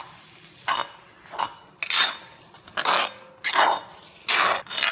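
Spatula scraping and turning thick masala around a cast-iron kadai: about six separate strokes, roughly one every 0.7 s.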